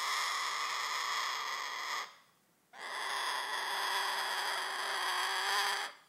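Umbrella cockatoo giving long, drawn-out screaming wails in imitation of a person crying out in pain. Two long calls: the first breaks off about two seconds in, and the second starts just under a second later and holds for about three seconds.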